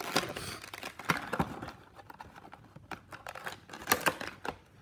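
Stiff clear plastic packaging of a model aircraft being handled and pried apart: irregular crinkles and clicks of the plastic box and blister tray, with the sharpest clicks about a second in and again near the end.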